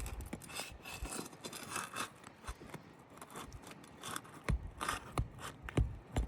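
Flat bar prying under a worn asphalt shingle: scraping and crackling as the shingle's seal is broken loose, with a few sharp knocks in the second half.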